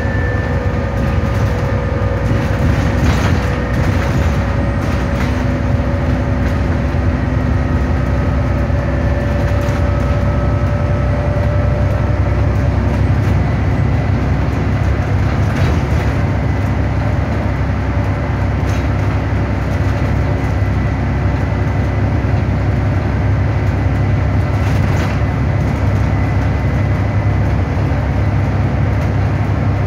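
Inside a Stagecoach Gold bus on the move: steady low engine and road rumble, with a faint tone that drifts slowly in pitch and a few short rattles from the body and fittings.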